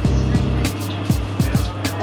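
Background music with a steady electronic beat: a kick drum about every third of a second with hi-hat ticks over a bass line.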